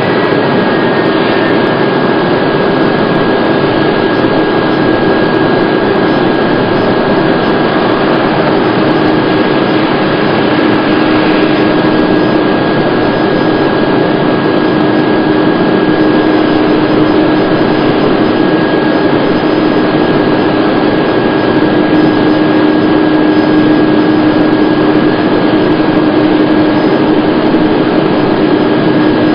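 Airbus A330 airliner's twin jet engines running, a loud steady rushing noise with a steady whine over it, as the plane rolls along the runway.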